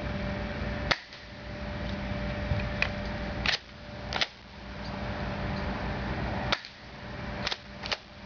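Stinger airsoft shotgun firing single shots: a series of about seven sharp snaps at irregular intervals, two of them close together near the end, over a steady background hum.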